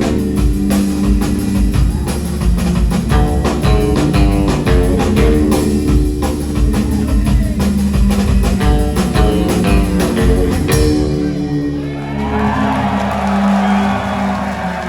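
Live rock band playing: steady drum-kit hits over bass and sustained low notes, stopping abruptly about eleven seconds in. A low note is held afterwards while an audience starts cheering.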